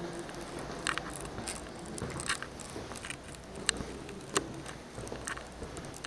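Footsteps on a wooden parquet floor: a row of separate, sharp steps about every half second to a second as someone walks through the rooms.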